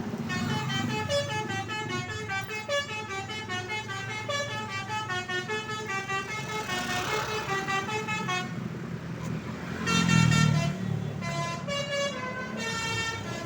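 Bus 'telolet' musical air horn playing quick melodic runs of short notes, over a low rumble that swells about ten seconds in.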